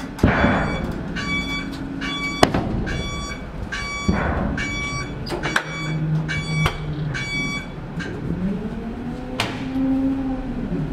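River tram's warning beeper sounding a rapid repeated beep, about three beeps every two seconds, while the boarding gate is shut, with a few clunks; the beeping stops after about seven seconds and a whine gliding up and down in pitch sets in as the boat gets under way.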